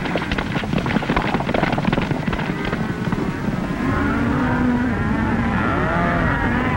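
Rapid hoofbeats of a galloping horse, a dense clatter. About four seconds in it gives way to the steadier rumble of a stampeding cattle herd, on an old film soundtrack.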